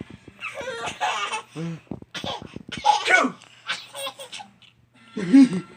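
A baby's laughter in several short bursts, set off by a man's fake sneezes, with breathy bursts between the laughs.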